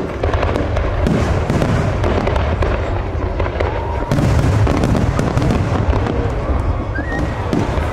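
Aerial fireworks shells exploding in quick, overlapping succession: a continuous barrage of low booms mixed with sharp cracks, getting louder about halfway through.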